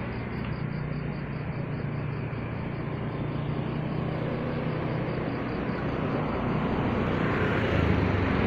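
Steady roadside traffic noise with a motor vehicle engine running, growing louder over the last few seconds.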